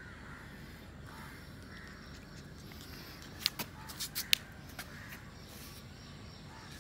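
A quick run of five or six sharp clicks or taps about halfway through, over faint outdoor background with a few faint, short high calls.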